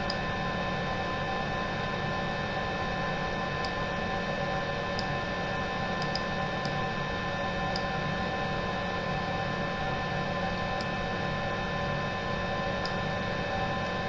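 Steady electrical hum with several steady tones held throughout, and a dozen or so faint, sharp computer-mouse clicks scattered through it as the control software's backplot view is changed.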